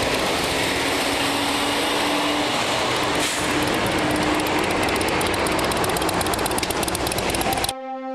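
Steady road and engine noise of a vehicle travelling at highway speed, a hiss with a low steady drone under it. It cuts off abruptly near the end.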